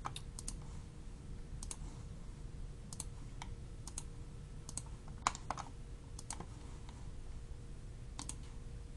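A computer mouse clicking: about a dozen sharp single and paired clicks at irregular intervals, over a faint steady hum.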